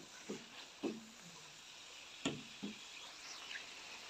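Chicken and green chillies frying in oil in a steel pan, a faint steady sizzle, with about four short knocks of a wooden spoon stirring against the pan, the loudest a little past the middle.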